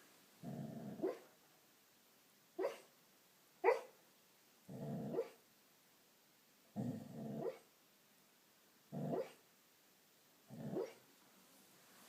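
A sleeping dog giving soft barks in her sleep: about seven short low woofs a second or two apart, some drawn out longer than others.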